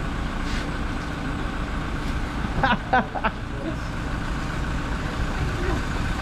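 Steady low rumble of idling vehicle engines. About halfway through, three quick pitched bursts of a voice are the loudest sound.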